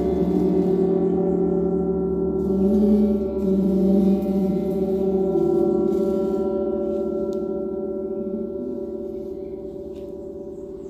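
A 1-metre Om yoga gong ringing after being struck, with several overlapping tones that swell and waver. The ring fades slowly over the second half.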